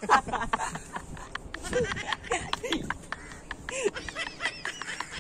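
Young men laughing and giggling in short bursts, with a few clicks and rustles.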